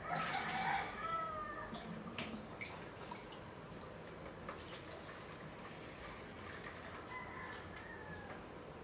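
Water splashing and dripping at a kitchen sink while plastic bowls and containers are handled, with scattered light knocks and clatter. Loudest in the first second.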